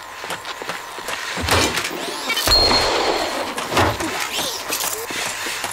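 A long stick striking a walking humanoid robot's metal body: three heavy clanks, the middle one loudest with a brief high ring.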